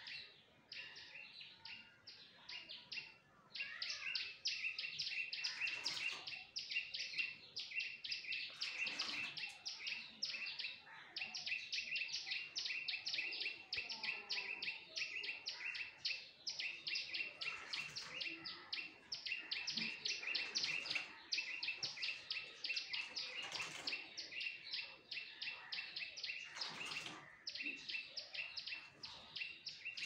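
A bird chirping in a fast, steady series of short chirps, about six or seven a second, which begins sparsely and keeps up without pause from a few seconds in. A few short, sharp noises cut through it now and then.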